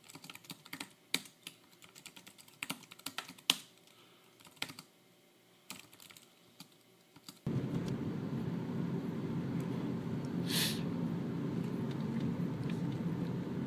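Typing on a computer keyboard, irregular key clicks, for about seven and a half seconds; then it cuts abruptly to the steady engine and road noise of a car driving, heard from inside the cabin, with one brief hiss about three seconds after the cut.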